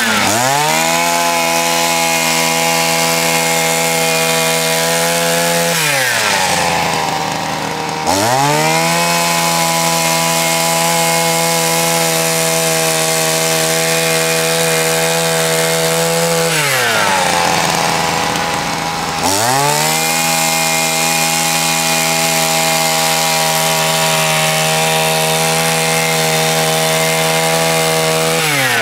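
Small two-stroke engine of a walk-behind power brush sweeper running at high revs while its brushes sweep snow. Twice, about six and about sixteen seconds in, the throttle is let off and the pitch falls toward idle, then it revs back up about two seconds later.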